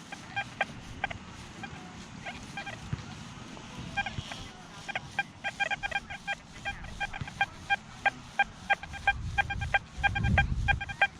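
XP Deus II metal detector sounding a target: short, high beeps of one pitch, a few at first, then coming rapidly many times a second from about five seconds in as the coil sweeps back and forth over a good target. A low rumble near the end.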